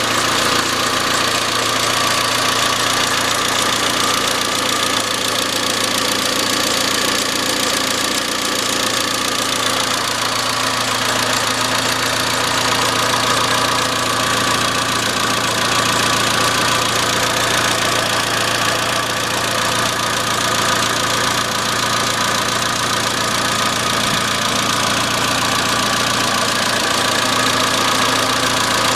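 Iran Khodro Samand's 1.6-litre 16-valve TU5JP4 four-cylinder engine idling steadily with a metallic knocking.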